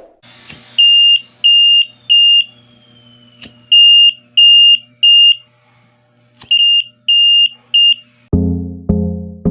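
Smoke alarm beeping its three-beep alarm pattern: three groups of three short, loud, high-pitched beeps, each group about three seconds apart. Music with keyboard chords starts near the end.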